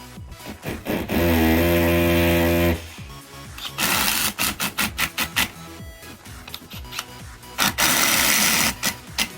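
Background music, with a small power tool motor running in short bursts: one steady spell that winds up at its start, then clattering spells and rapid clicks.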